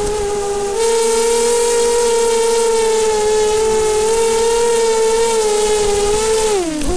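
FPV multirotor drone's motors and propellers giving a steady, loud whine. The pitch steps up about a second in, then falls and cuts off near the end as the motors spin down.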